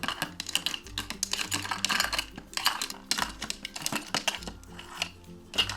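Many quick, light clicks and clatters of small plastic toy food pieces being handled and set in a toy pan, over soft background music.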